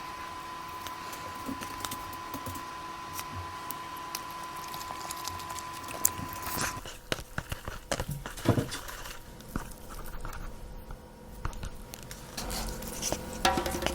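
Close-miked eating and food-handling sounds: scattered light clicks and taps, busier after about halfway. A faint steady electrical whine runs under the first half and then stops.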